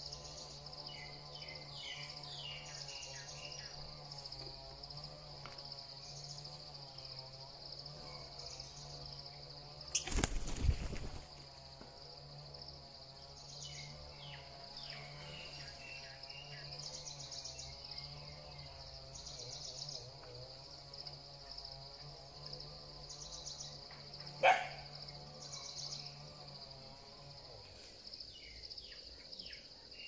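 A steady, high insect drone of crickets or cicadas, swelling in pulses every few seconds, with short runs of falling bird chirps several times over. There is a loud noisy rush about ten seconds in and a sharp single call or snap about twenty-four seconds in.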